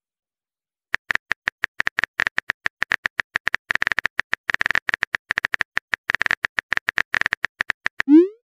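Keyboard typing clicks from a texting app: rapid, uneven taps, several a second, starting about a second in, as a message is typed out letter by letter. A short rising blip comes near the end.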